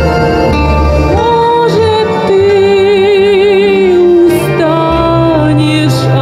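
A woman singing long held notes with vibrato into a handheld microphone, over a steady instrumental accompaniment.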